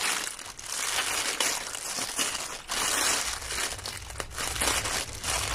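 Grey plastic mailer bag crinkling as it is handled and cut open with scissors.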